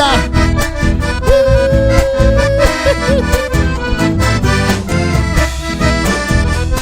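Live accordion-led folk dance music for gatos and cuecas, with bass and a steady beat under the accordion and one note held for about a second.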